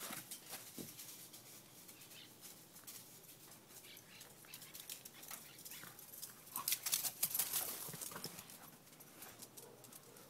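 Light footfalls and rustling on grass and dry leaves as a dog runs around a yard, with a louder flurry of rustling and crunching about seven seconds in.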